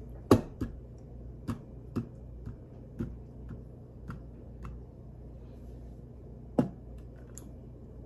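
A series of sharp taps and knocks on the table, about a dozen at uneven intervals. The loudest comes right at the start and another strong one near the end, with fainter taps between.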